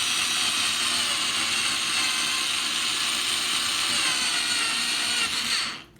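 Electric drill running steadily as it bores a hole into the wall, with a faint motor whine over the cutting noise; it stops suddenly just before the end.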